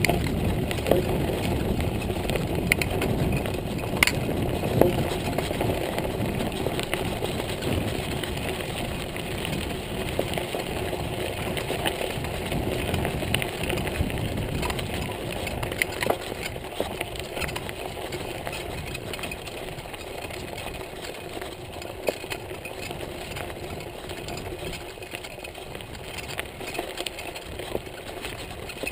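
Montague Paratrooper Pro mountain bike rolling along a gravel and dirt trail: a steady rumble from the tyres and riding, with scattered sharp clicks and rattles, slowly getting quieter.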